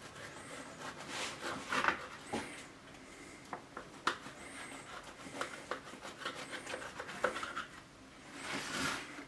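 Serrated knife sawing through a baked slab of Nussecken, the blade rasping in uneven strokes through the crunchy nut topping, with a few sharp clicks.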